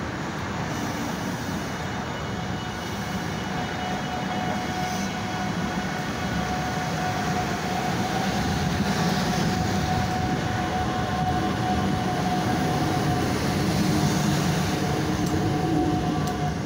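South Shore Line Nippon Sharyo electric cars pulling out of the station, with a steady electric motor hum over wheel and track rumble that grows gradually louder as the train gets under way.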